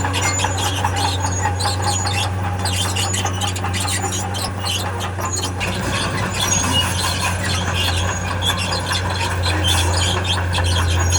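Steel crawler tracks of heavy earthmoving machinery squealing and squeaking as it moves, over the engine's steady low drone.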